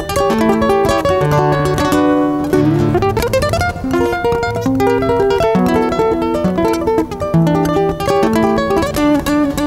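Solo nylon-string classical guitar played fingerstyle, a busy line of plucked notes with a quick rising run about three seconds in.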